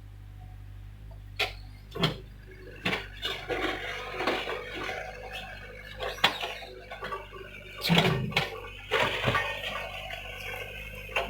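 Hyundai excavator working: its diesel engine hums low and steady while a series of sharp metallic clanks and rattling, scraping noises come from the digging, several of them in the middle of the stretch.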